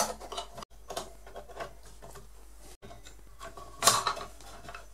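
Steel bandsaw blade being worked by hand back onto the wheels of a small bandsaw: scattered light clicks and taps as the blade knocks against the wheels and housing, with a louder clatter about four seconds in.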